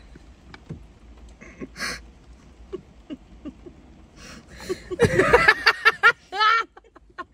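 Faint clicks and rustling, then about five seconds in a burst of loud laughter in quick, repeated voiced pulses that stops about a second and a half later.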